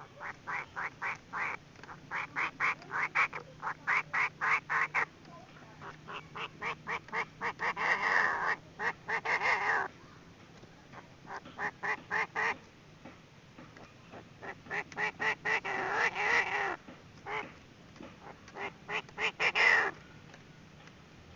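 Female Chinese francolin calling. Runs of short clucking notes come about five a second, broken by a few longer, denser, harsher chattering calls.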